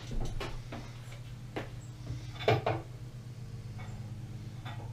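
A handful of short knocks and clicks from things being handled, the loudest about two and a half seconds in, over a steady low hum.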